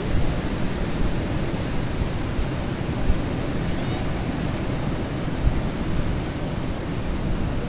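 Sea surf breaking and washing in over a shallow beach: a steady rushing noise, heavy in the low end, with two brief sharper thumps about three and five and a half seconds in.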